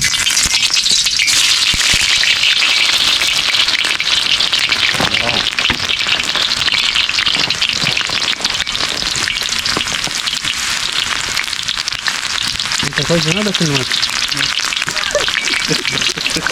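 Onion frying in hot cooking oil in a large pan, a loud, steady sizzle; the onion is being left to burn to flavour the oil.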